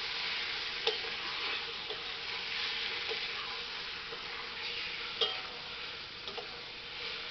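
Bombay duck (lote fish) pieces sizzling in spiced oil in a metal kadai while a metal spatula stirs them. The spatula clinks against the pan about a second in and again just after five seconds.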